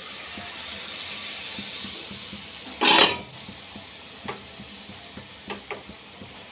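Jalebi frying in hot oil, a steady sizzle, with one short loud burst of noise about three seconds in. A few light clinks of a utensil against the pan follow.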